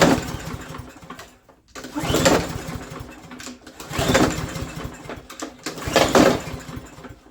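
Briggs & Stratton push mower engine pulled over on its recoil starter four times, about two seconds apart, each pull a short burst of cranking that does not catch. The engine still won't start with a freshly cleaned spark plug, pointing to a fuel or carburetor problem.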